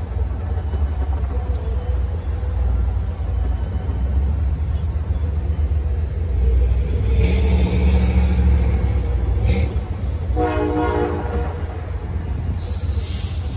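Road traffic passing over a railroad grade crossing above a steady low rumble, one vehicle swelling louder and fading past about halfway through. Soon after comes a single horn blast about a second long.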